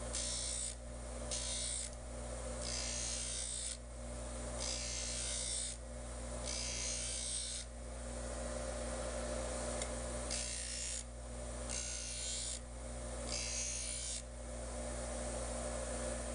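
DeWalt bench grinder running with a steady motor hum while the bevel of a steel block plane blade is ground on the wheel in repeated single passes. Each pass gives a hissing grind of about a second, roughly eight in all, with a pause of about two seconds near the middle.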